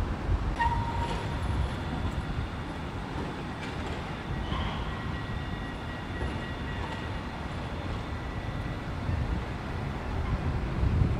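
Electric tram running on street rails: a steady low rumble, with a faint thin high whine from about four seconds in.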